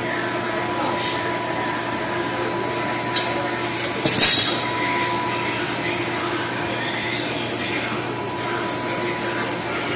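Steel deep-well pipes and fittings clanking as the pipe string is pulled up: a light metal clink just after three seconds, then a louder ringing clank about a second later, over a steady background hum.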